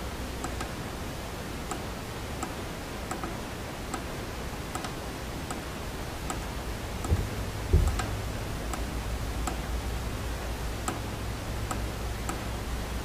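Small button on a digital wind/solar charge controller clicking as it is pressed again and again, about every three quarters of a second, to scroll through the setting's digits. Two louder low thumps come about seven and eight seconds in, and a low hum follows.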